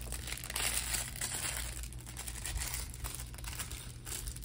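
Small plastic bag of LEGO pieces being handled and opened: a run of crinkling rustles and quick small crackles, busiest about a second in.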